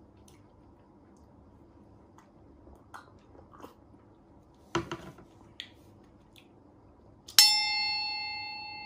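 A bright bell-like ding sound effect strikes suddenly near the end and slowly fades, ringing with several clear pitches. Before it, faint sips and swallows from a mug, with a few small clicks.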